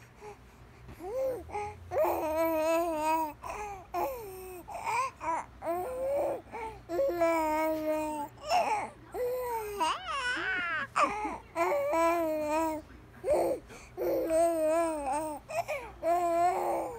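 An infant cooing and babbling in a string of drawn-out, high-pitched vocal sounds with wavering pitch, separated by short pauses; it starts about a second in.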